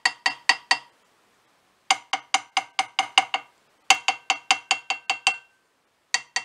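BSA A65 crankshaft's flywheel webs tapped lightly with a hammer, in quick runs of about seven or eight taps, each tap ringing with the same clear pitches. This is a ring test for cracks: both webs give a very similar, healthy ringing sound, which the owner takes as a sign the crank is not cracked. The test is not a complete crack test.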